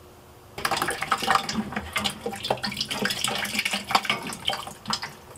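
Water draining out of a just-disconnected copper supply pipe at a water softener's bypass valve, splashing irregularly. It starts suddenly about half a second in.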